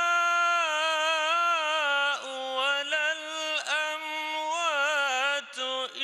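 A man's voice in melodic Quran recitation, drawing out long held vowels with wavering trills and turns of pitch. It breaks off briefly about two seconds in and again about three and a half seconds in.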